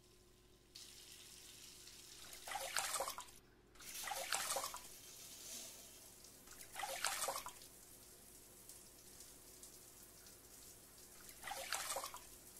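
A bathroom tap starts running into a sink about a second in and runs steadily. Water splashes in the basin four times, the last just before the end.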